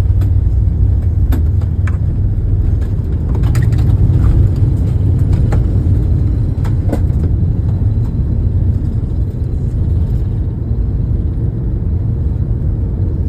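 Airbus A380 takeoff heard from inside the cabin: a loud, steady deep rumble from its four Rolls-Royce Trent 900 engines and the airframe, with light clicks and rattles of cabin fittings in the first half. The rumble eases slightly near the end.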